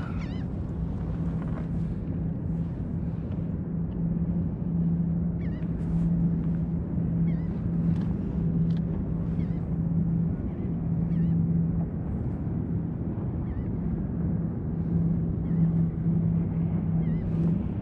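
Open-water ambience: wind and water noise with a steady low hum that swells and fades, and scattered short bird calls throughout.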